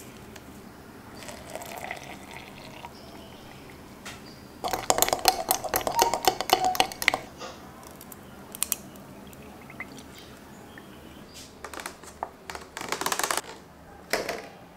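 Liquid pours into a glass. Then come two spells of rapid clinking and rattling against the glass, from a spoon stirring and ice cubes knocking together. Near the end a plastic container crackles.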